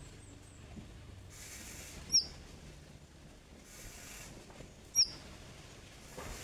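Common iora (konin) giving two short, sharp, high chirps that slide quickly down in pitch, about three seconds apart, over a faint steady hiss.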